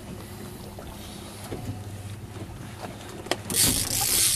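Small fishing boat at sea with a low steady hum. About three seconds in there is a sharp click, then a loud burst of rushing noise for about a second near the end.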